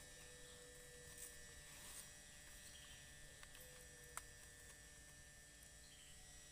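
Near silence with a faint steady hum and one small click about four seconds in.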